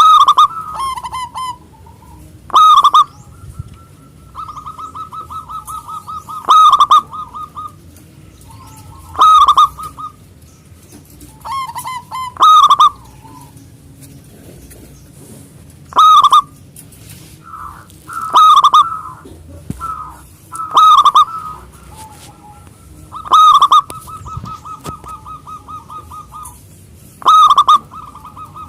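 Zebra dove (perkutut) cooing: loud calls repeated about every three to four seconds, some followed by a longer run of rapid, evenly spaced short notes at the same pitch.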